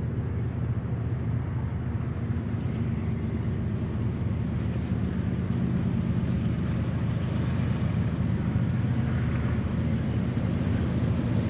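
Diesel locomotive engine running with a steady low drone, growing slightly louder toward the end.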